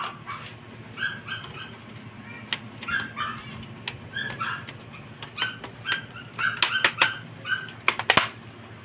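A dog whimpering and yipping: short high cries repeated again and again, with sharp clicks in among them, most of them near the end.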